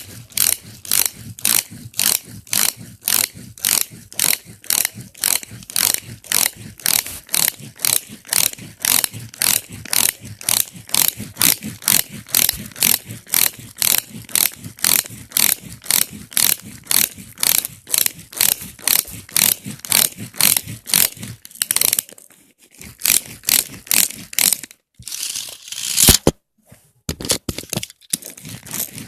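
Toy car making rapid ratcheting clicks, about three a second, broken by a short pause and a longer scraping burst late on.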